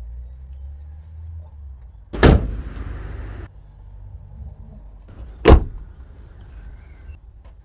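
Two car driver's doors slammed shut, one about two seconds in and another about three seconds later, each a single solid thump on a Rover-group car with all the windows closed.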